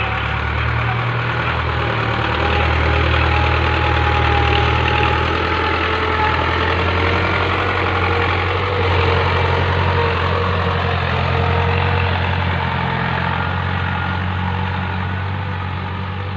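Tractor engine running steadily under load while ploughing, a deep steady hum with clattering noise above it, getting a little louder a few seconds in and easing slightly near the end.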